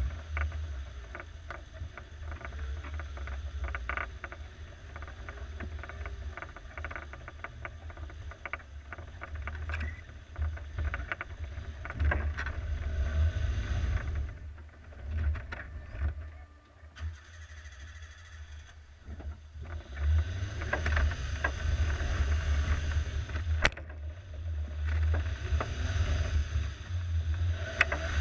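Suzuki SJ413 4x4 driving slowly over a rough, muddy trail: a low engine and drivetrain rumble with frequent small knocks and clatters from the body and suspension. It quietens for several seconds in the middle, then picks up again.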